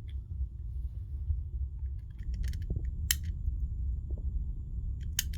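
A loose, faulty wall light switch clicking sharply three times, over a low steady rumble.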